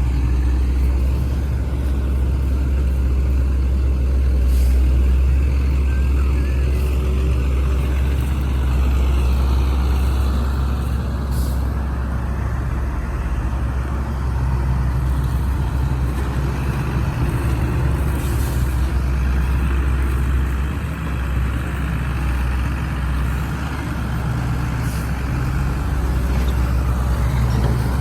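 Heavy diesel engine of a working excavator running steadily, with a deep hum underneath and a sound that rises and falls a little as the machine works.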